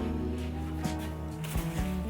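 Background music: a gentle pop song in an instrumental gap between sung lines, with held notes and a light beat.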